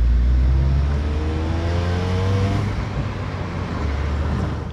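Car engine and road rumble heard from inside the cabin, a heavy low drone. About a second in, the engine note rises steadily for a couple of seconds as the car accelerates.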